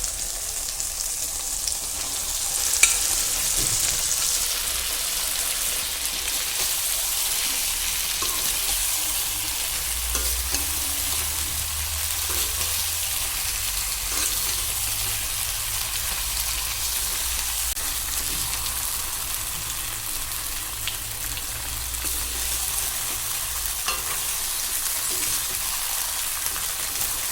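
Chicken pieces sizzling steadily as they fry in oil and tomato-spice masala in a pan, with occasional light knocks and scrapes of stirring.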